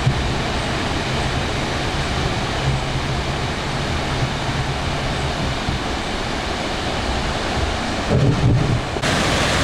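A waterfall in full spate after heavy rain: a steady, loud rush of water. About eight seconds in, a short low rumble of wind buffets the microphone.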